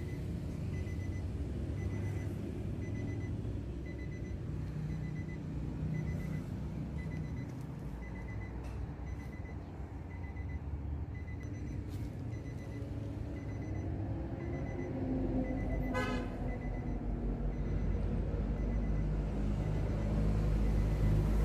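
Low, steady rumble of a vehicle engine that grows louder near the end, with a faint high electronic beep repeating about every half second and pausing for a few seconds in the middle. A brief toot sounds about 16 seconds in.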